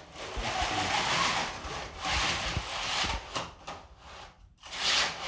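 Window blinds being worked up and down by hand, their cord and slats sliding and rubbing through the mechanism in three long swishing strokes.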